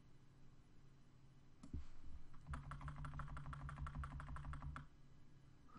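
A single click about a second and a half in, then a quick, even run of small clicks, about nine a second, lasting about two seconds, with a low hum alongside: the computer's controls being worked while editing a 3D model.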